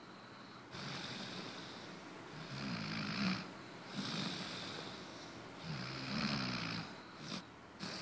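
A person snoring: two long, rattling snores about three seconds apart, with breathy exhales between them.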